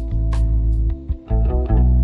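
Instrumental music with a deep bass line, plucked guitar and sharp drum hits; the notes shift about a second and a half in.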